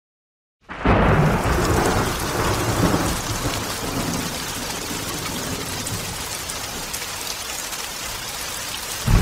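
Heavy rain with rolling thunder: a thunderclap rumbles in about a second in, the rain hiss goes on steadily, and another low rumble comes near the end.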